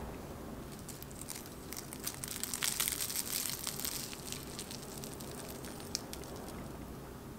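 Crisp panko crust of a deep-fried minced-meat cutlet (menchi katsu) crackling and crunching as it is torn apart by hand, the crackles thickest about two to four seconds in.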